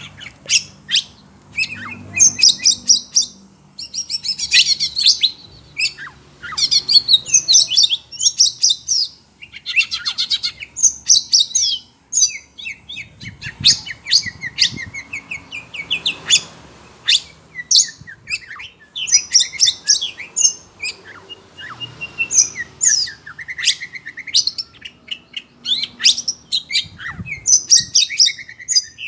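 Oriental magpie-robin (kacer) singing hard in a continuous run of varied whistled phrases, quick chirps and rattling trills, with falling strings of notes now and then; the bird is worked up by the calls of other birds.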